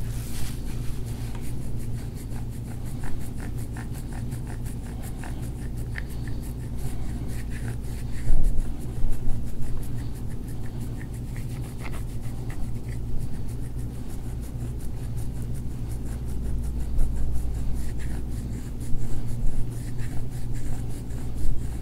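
Soft scraping and rubbing of a hand-held gua sha tool and fingers working along the skin of a forearm, with faint scattered ticks, over a steady low hum.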